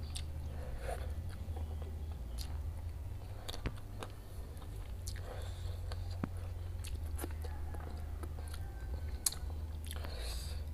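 A person chewing and eating close to the microphone: scattered short crunches and wet mouth clicks over a steady low hum.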